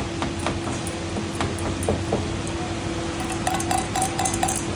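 A spoon clinks against a steel bowl as eggs are beaten, with butter sizzling in a frying pan underneath. Near the end the beaten egg is poured into the hot butter.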